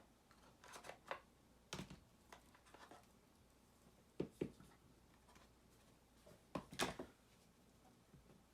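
Small items and cardboard packaging being handled: scattered light clicks and rustles, two louder ones about four and seven seconds in.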